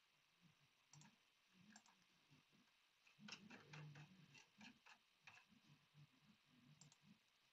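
Faint, quick clicks at a computer, made while operating the keyboard and mouse. There are a few single clicks early, then a quick run of about ten clicks in two seconds midway, and one more near the end.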